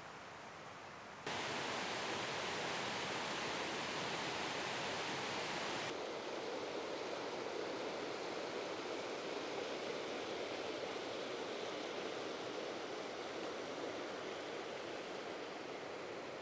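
A river rushing over rocks and small rapids, a steady noisy rush of water. It jumps louder about a second in and turns less hissy about six seconds in.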